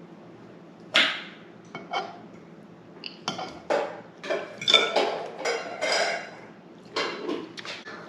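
Dishes and utensils clattering: a string of separate knocks and clinks, busiest in the middle.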